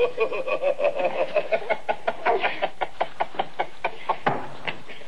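A rapid run of sharp smacks from a scuffle, about four a second, thinning out near the end. Over the first half a woman's voice cries out in a long, wavering wail.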